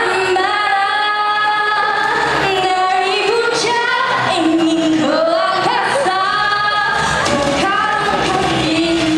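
Female solo vocalist singing a Malay song into a handheld microphone, holding long notes that glide between pitches, over a musical accompaniment.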